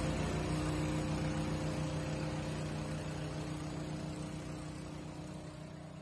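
Truck-mounted turbine mist cannon running as it blows disinfectant spray: a steady rush of air and spray over a low hum, slowly fading.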